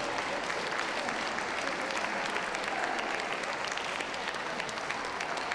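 Crowd applauding steadily, a dense patter of many hands clapping.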